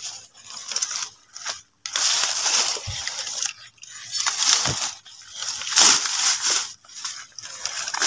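Leaves, stems and twigs of forest undergrowth rustling and crunching close by as someone pushes through it, in irregular bursts about once a second, with two dull thumps partway through.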